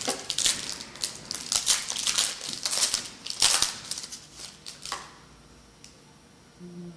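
Plastic wrapping on a pack of trading cards being torn open and crinkled, a run of rustling rips that stops about five seconds in.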